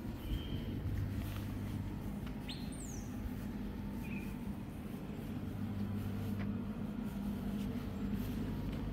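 Birds chirping in short high calls a few seconds apart, with one high whistle that drops in pitch about three seconds in, over a steady low hum of traffic.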